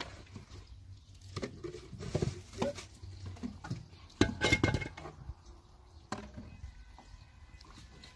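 Scattered knocks and light clatter of a plastic colander and bowl being handled and set down, with the loudest clatter about four seconds in.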